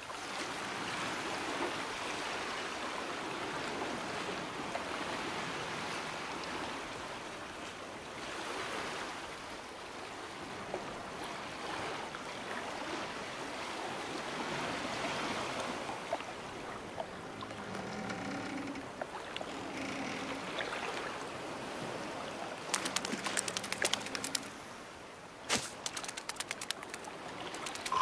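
Sea water washing and lapping, a steady noise that swells and ebbs. In the last few seconds, rapid runs of sharp clicks and ticks cut in over it.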